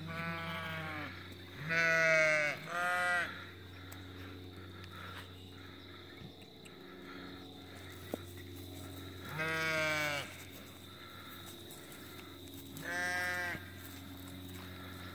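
Sheep bleating: five separate bleats, three close together near the start, one about ten seconds in and one shortly after thirteen seconds.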